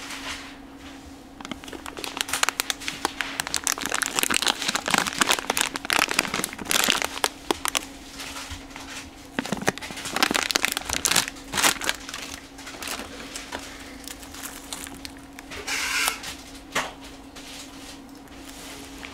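Clear plastic bags crinkling and rustling as the sealed kit parts inside are handled and turned over, busiest through the first two-thirds, with a faint steady hum underneath.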